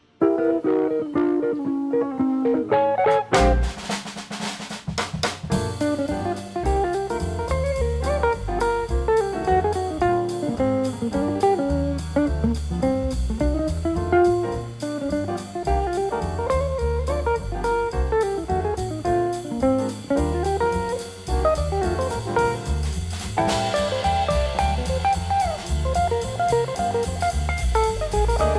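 Instrumental background music with guitar and a drum beat; the drums come in a few seconds after it starts.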